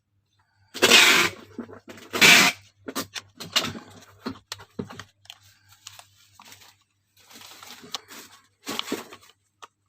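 Packaging being torn open by hand: two loud rips about one and two seconds in, followed by lighter rustling and clicking as it is handled.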